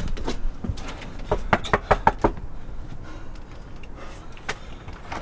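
Clicks, rattles and knocks of a metal storm door being handled and pulled open at a front door. The knocks come close together in the first couple of seconds, with a couple more a little past the middle.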